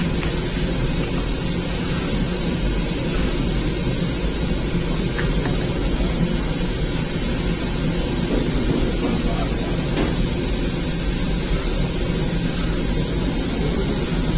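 Gas-fired rotating bread oven running: its burners and machinery make a loud, steady, even noise with a low hum underneath.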